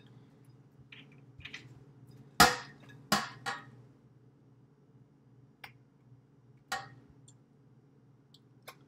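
Kitchenware knocks and clinks: a metal springform cake tin set down on the counter with a sharp clank about two and a half seconds in, then several lighter taps and clicks as a spatula scrapes dough from a glass mixing bowl.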